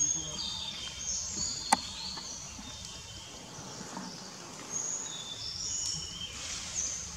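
Forest ambience: short, high-pitched bird chirps and calls on several pitches over a steady background hiss, with one sharp click about a second and a half in.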